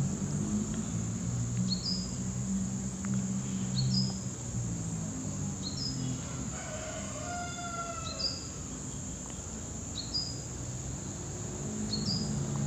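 Outdoor ambience: a steady high insect drone, with a bird giving a short rising chirp every second or two and another bird singing briefly midway, over a low background hum.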